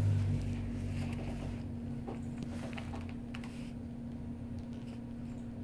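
Black-and-tan shorthaired dachshund puppy eating a jerky treat from a hand on a wooden desk: faint clicks and small taps of chewing and paws, clustered between about two and three and a half seconds in, over a steady low hum.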